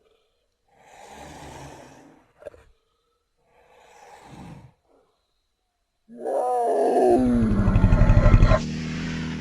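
Made-up Carnotaurus roar sound effect: two soft breathy snorts, then a loud roar that falls in pitch over a fast, rattling low growl and cuts off sharply near the end.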